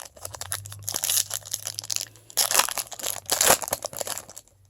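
Foil trading-card pack wrapper crinkling and tearing as it is handled and ripped open, in irregular loud bursts that die away just before the end.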